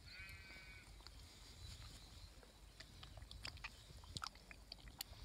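Faint wet squelching and soft clicks from a hand working inside a ewe's birth canal to ease out a lamb. A brief high, whistle-like call sounds in the first second.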